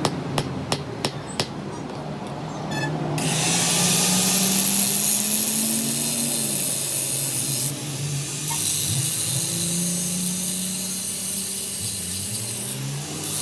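A few quick hammer blows on metal, then from about three seconds in a steady, hissing scrape of metal being ground or rasped by a tool, with a low hum under it, pausing briefly twice.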